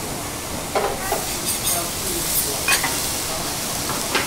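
Food sizzling on a hot teppanyaki griddle, a steady hiss broken by several sharp scrapes and clinks of metal spatulas against the iron plate.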